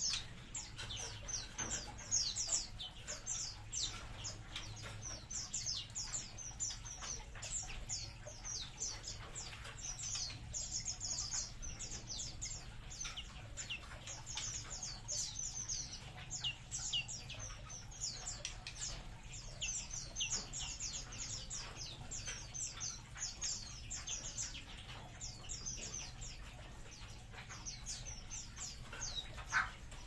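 Many small aviary birds chirping continuously, with dense, overlapping short high calls and a single louder knock or flutter near the end.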